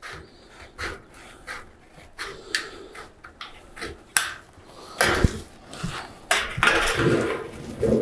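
Hand metal snips cutting a strip off a painted sheet-metal roofing panel: a series of short cutting strokes, one per squeeze of the blades, about one or two a second, the louder ones in the second half.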